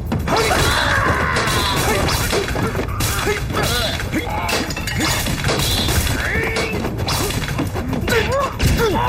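Repeated crashing and shattering impacts, like objects being knocked over and smashed, over dramatic soundtrack music.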